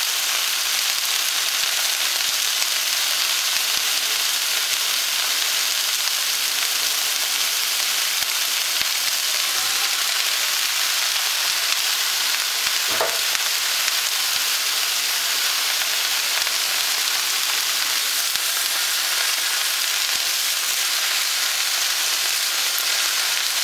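Vegetables frying in olive oil in a nonstick frying pan, a steady sizzle throughout. A single knock comes about halfway through, and a spatula stirs the vegetables near the end.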